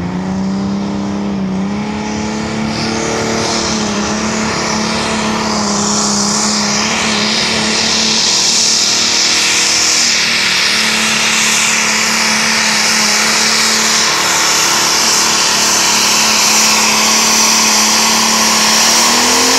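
Diesel pulling tractor at full throttle under heavy load while it drags a weight-transfer sled. The engine note is loud and held near steady, with a harsh high hiss over it.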